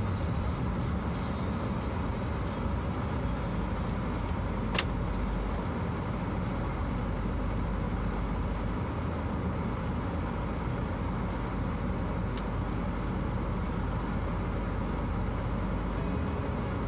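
Steady low hum inside a car idling at a stop, with one sharp click about five seconds in.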